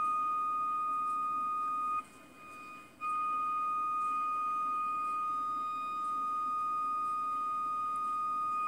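Steady high-pitched test tone from an AM/FM clock radio's speaker, receiving the modulated FM signal of a Conar Model 281 RF signal generator. The tone cuts out for about a second, two seconds in, then resumes; its presence shows the generator's FM output is working.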